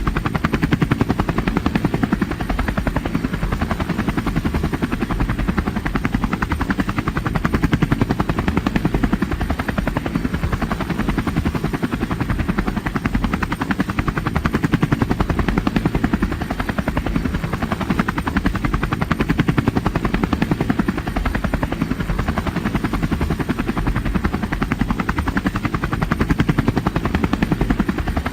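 Helicopter in flight, its rotor blades chopping in a fast, steady rhythm, with the level swelling and easing a little.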